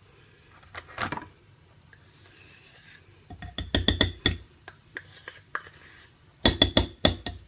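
Ricotta cheese being scraped and knocked out of its container into a bowl. There is a single knock about a second in, then two bursts of quick knocks and scrapes, one a little past three seconds and one near the end.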